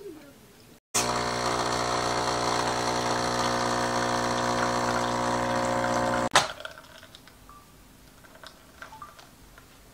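Capsule coffee machine's pump buzzing steadily as it dispenses coffee into a cup, starting abruptly about a second in and cutting off sharply about five seconds later.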